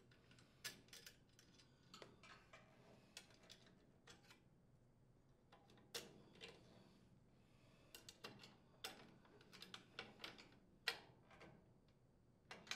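Faint, irregular metallic clicks and taps as a small wrench turns and tightens a screw on the sheet-metal cylinder head shield, with the shield shifting against the engine.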